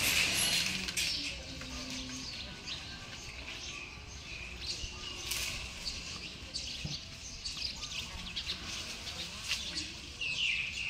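Small birds chirping on and off, many short high chirps, over a low steady rumble.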